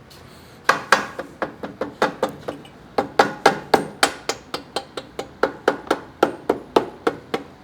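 Mallet tapping the swing-arm pivot shaft through the frame and swing arm of a Triumph Bonneville T120, a quick run of about two dozen sharp knocks at roughly four a second, with a short pause partway through. The shaft is being driven home during the swing-arm refit.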